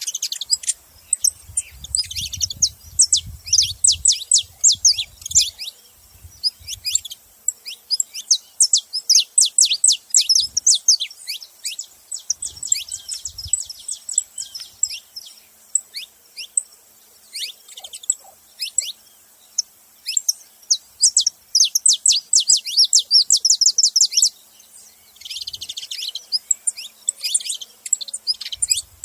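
Saffron finches calling and chattering at a feeding spot: rapid runs of short, high, downward-sweeping notes, briefly pausing a little before the end. Faint low rumbles sound underneath early on.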